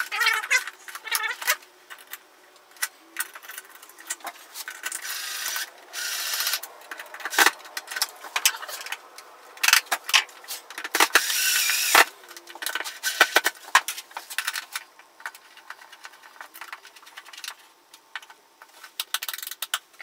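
Clicks, taps and scraping of a plastic light switch and its cover plate being handled and fitted into a 3D-printed wall frame. There are two longer stretches of scraping, about five and eleven seconds in.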